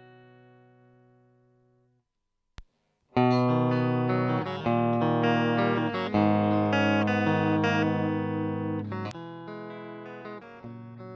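Clean electric guitar from a Squier Classic Vibe '50s Stratocaster played through a Kokko mini compressor pedal. A held note fades away, then a sharp footswitch click about two and a half seconds in, and loud, evenly sustained notes and chords with the compressor engaged. Another click about nine seconds in switches the pedal to bypass, and the playing goes on noticeably quieter.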